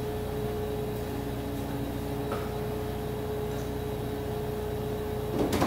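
Steady mechanical hum with a constant mid-pitched tone. A short, louder burst of noise comes just before the end.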